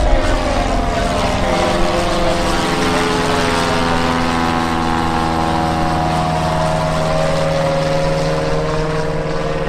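Single-engine Cessna's piston engine and propeller droning as the plane passes overhead, the pitch sinking slowly as it goes by.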